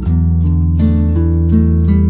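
Background music led by acoustic guitar, plucked and strummed in a steady rhythm.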